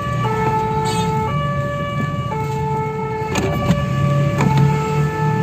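Fire engine's two-tone siren sounding hi-lo, switching pitch about once a second, heard from inside the cab with the truck's engine running underneath. A few sharp knocks about three seconds in.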